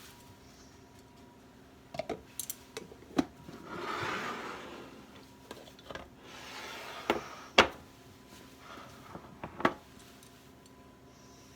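Kitchen handling sounds: about six sharp knocks and clinks of dishes and utensils, the loudest about two-thirds of the way through, with two short stretches of rubbing between them.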